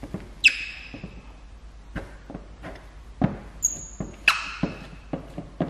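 Flexible plastic squeegee rubbing and squeaking over wet paint protection film, with sharp squeaks about half a second in and just past four seconds, between scattered light taps and knocks from handling.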